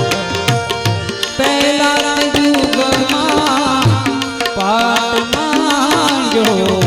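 Instrumental interlude of a Gujarati devotional aarti (bhajan): held harmonium-like notes over fast hand-drum strokes. A bending, ornamented lead melody comes in about a second and a half in.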